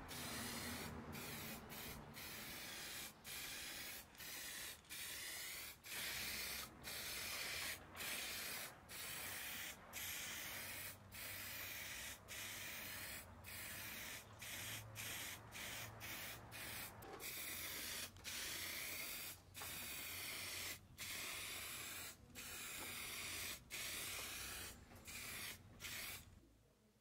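Aerosol spray can hissing in short bursts about a second long, with brief pauses between, as a finish is sprayed onto bare wood; the spraying stops near the end.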